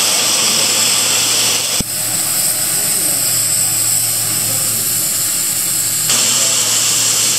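Oxy-fuel gas cutting torch running with a loud, steady hiss as its flame pierces and cuts holes in a steel plate. A sharp click comes about two seconds in, and the hiss changes tone until about six seconds in.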